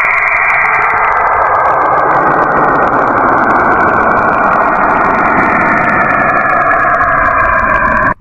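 Loud, steady rushing drone presented as the rumbling sound of a planet in outer space, cutting off abruptly at the very end.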